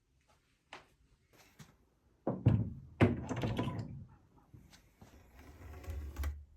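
Knocks and thuds of objects being handled and set down. A click comes first, then two loud thuds about two and a half and three seconds in, the second trailing off in a short rattle, and lighter clattering near the end.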